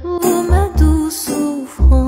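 Music cuts in suddenly: held melody notes over a heavy, pulsing bass beat.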